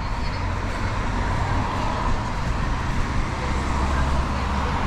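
Street traffic going by on a wet city road: tyre hiss over a low engine rumble that swells near the end as a heavier vehicle passes.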